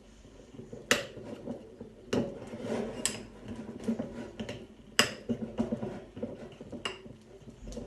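A spoon stirring melting marshmallows in a bowl, scraping with sharp clinks against the bowl's side about five times.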